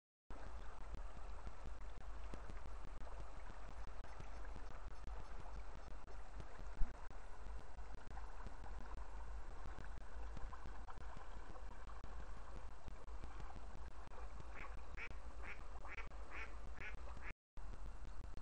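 Ducks quacking on a river: a quick run of about six quacks near the end, over the steady rush of flowing river water and a low rumble. A single sharp knock about seven seconds in.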